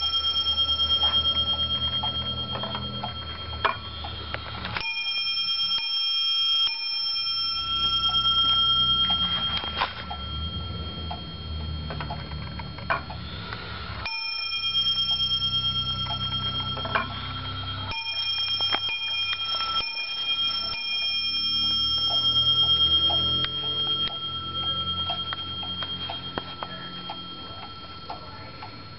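Warmink Zaanse wall clock striking on its bell, each blow leaving a long metallic ring, with the movement ticking underneath. A fresh set of strikes starts about 5 s, 14 s and 18 s in.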